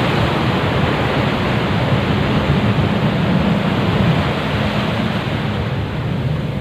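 Sea surf washing up on a sandy beach: a steady rush of small breaking waves and foam at the water's edge.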